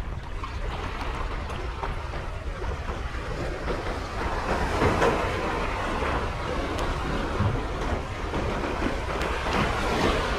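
Small sea waves washing and breaking over shoreline rocks, swelling about halfway through and again near the end, with wind rumbling on the microphone.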